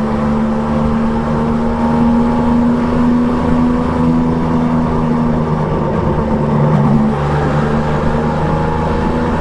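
Triumph Trident 660's inline three-cylinder engine with an Akrapovic exhaust running under way on the road. The pitch holds fairly steady, then changes with the throttle a little past halfway.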